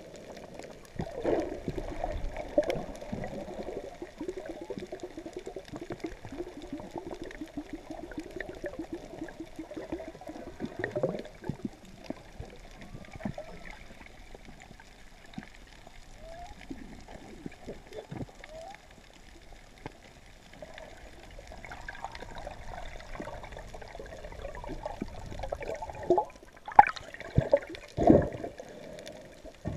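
Humpback whale song heard underwater: a run of low pulsed moans and grunts with short rising calls, over a wash of water noise, with a few louder sounds near the end.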